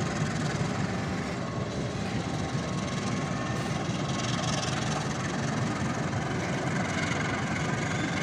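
Diesel-electric CC206 locomotive engine running steadily under load as it pulls a train of empty flatcars away from a stop, getting a little louder as it comes closer.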